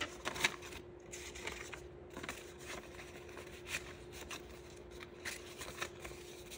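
Paper banknotes rustling and sliding as cash is handled and put into a sinking-fund envelope, with soft scattered crinkles and taps. A faint steady hum runs underneath.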